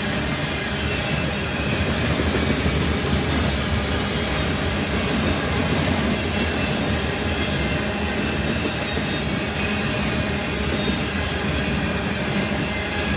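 Potash covered hopper cars of a CN freight train rolling steadily past: a continuous rumble of steel wheels on rail.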